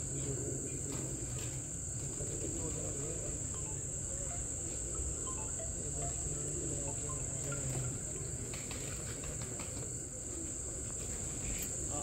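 Crickets trilling in a continuous high-pitched drone, over a low steady hum.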